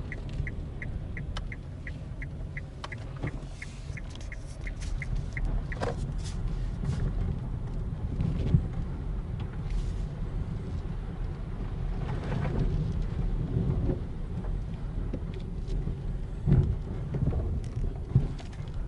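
Nissan Leaf driven over a rough road, heard from inside the cabin: a steady low road rumble with occasional dull knocks from the suspension, which the owner takes for a worn anti-roll bar link or tie rod end. A run of evenly spaced high ticks, about three a second, runs through the first five seconds or so.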